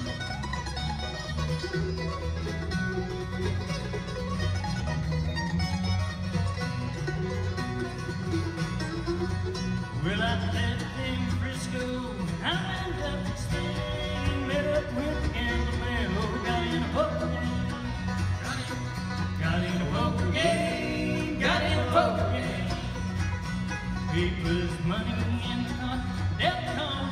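Live bluegrass band playing a steady up-tempo tune on fiddle, mandolin, acoustic guitar, five-string banjo and bass guitar, with sliding high notes standing out through the middle.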